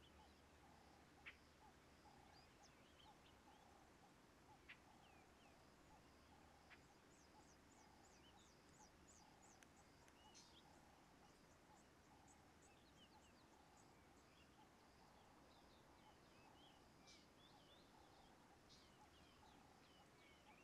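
Faint wetland ambience: many short, high chirps from small birds over a steady pulsing trill, with two soft clicks in the first five seconds.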